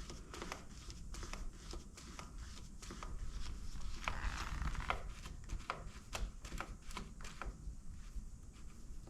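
Scattered light clicks and taps of parts and cables being handled, with a brief rustling scrape about four seconds in.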